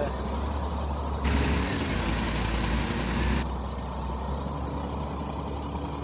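Wheel loader's diesel engine running with a steady low rumble. About a second in, a hiss starts, then cuts off abruptly two seconds later.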